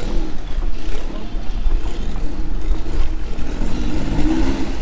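Boat engine running steadily with the boat under way, a deep continuous rumble with a rushing noise over it that swells about four seconds in.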